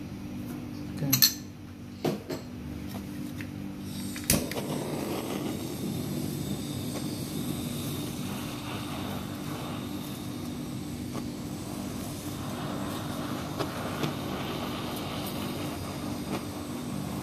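Kitchen blowtorch flame hissing steadily as it caramelises the sugar topping of a crema catalana, starting with a sharp click about four seconds in; a few clicks come before it.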